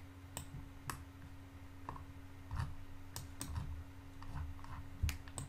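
Computer mouse clicking at irregular intervals, about eight short sharp clicks, over a faint steady hum: the clicks of selecting edges to toggle in CAD software.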